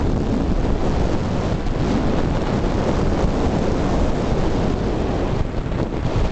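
Wind buffeting the microphone of a camera travelling fast along a paved lane: a steady, loud rushing rumble.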